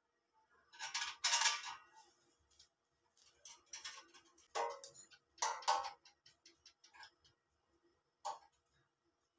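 Galvanized sheet-metal parts handled and pressed together by hand: a few short bursts of metallic scraping and clinking as a strip is fitted across the stove frame. A faint steady hum lies underneath.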